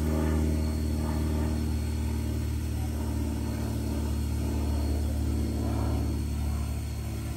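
Steady low rumbling hum of idling machinery: an even drone with a fine, regular pulse that holds the same pitch throughout.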